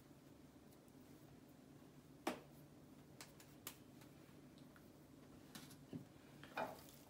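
Near silence: quiet room tone with a few faint, scattered clicks and taps, the sharpest about two seconds in.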